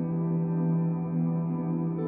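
Ambient background music: sustained, layered drone-like tones, shifting to a new chord near the end.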